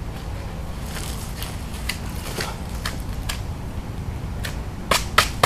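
Scraping and rustling of soil and leaf litter from digging a fire pit, with a few sharp clicks near the end, over a steady low rumble.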